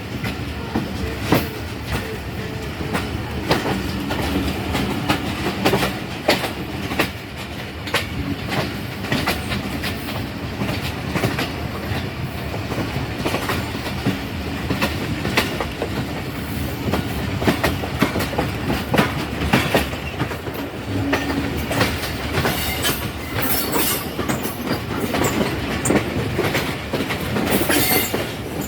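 Passenger train running on the line: a steady rumble of the coaches with wheels clattering over rail joints in frequent irregular clicks, and a couple of brief high-pitched screeches near the end.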